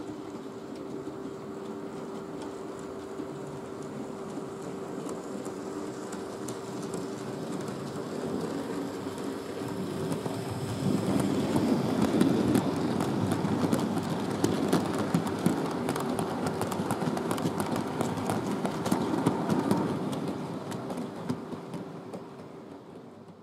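Model goods train hauled by a model SR USA-class 0-6-0T tank locomotive running past: a small electric motor hum and wheels rattling and clicking over the rail joints. It grows louder as the wagons pass close about halfway through, then fades near the end, over a steady hum.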